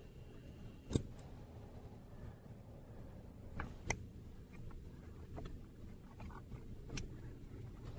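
Quiet small-room tone with a few faint clicks and light knocks, about a second in, around four seconds and near seven seconds, from a person stepping and moving about.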